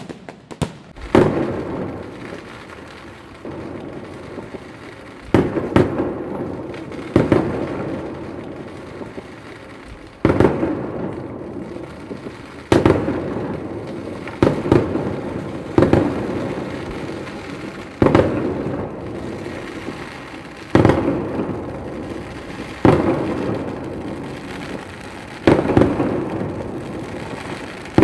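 Fireworks bursting overhead: about a dozen loud bangs, roughly one every two seconds, each followed by crackling and a rumbling echo that fades out.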